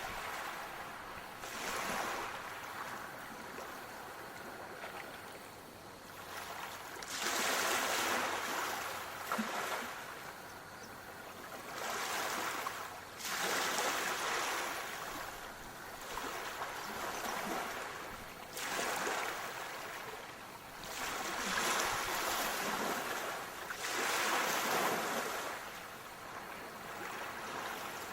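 Sea waves washing in, a rushing noise that swells and fades every few seconds.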